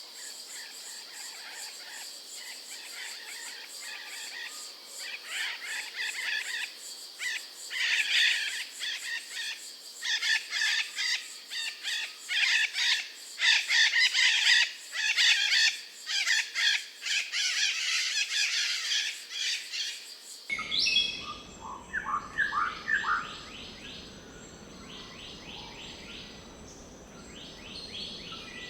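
Many birds chirping and singing together over a steady high insect drone, a dense forest dawn-chorus ambience. About twenty seconds in it cuts to a different recording: quieter background with a few clear, falling whistled bird calls.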